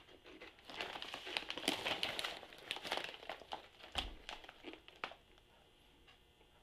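Lay's potato chip bag crinkling and crackling as it is lifted and turned over in the hand, with a low thump about four seconds in; the crinkling stops about five seconds in.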